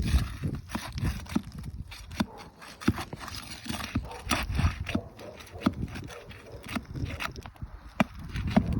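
Asphalt roof shingles being pried up and worked loose: irregular clicks, knocks and scraping, with the granules crunching off the shingles. The granule loss is a sign of shingles too brittle to repair.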